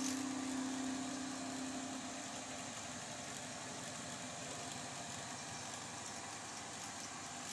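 A small machine running steadily, with a fast, even pulse like a spinning motor; a held musical tone fades out in the first half-second.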